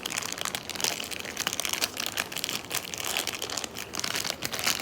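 Plastic packaging crinkling and rustling as a toy figure's wrapping is handled and opened: irregular crackles without pause.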